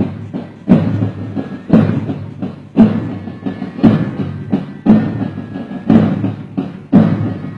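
Drum beat: heavy strokes about once a second in a steady rhythm, with lighter hits between them.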